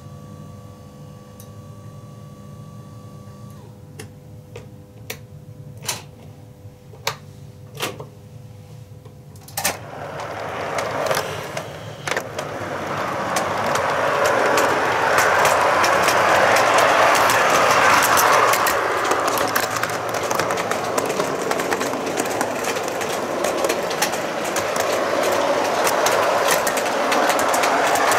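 A steady hum stops a few seconds in, followed by a string of sharp clicks about a second apart. About ten seconds in, a model train sets off and the rumble of its wheels on the track builds up and then runs on steadily, full of fast ticking from the rails.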